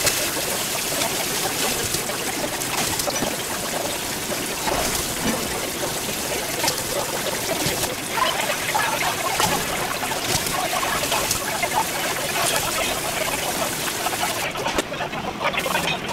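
Kitchen tap running into a stainless-steel sink as metal utensils and a bowl are rinsed under the stream, with a few sharp clinks now and then. The rush of water drops away near the end.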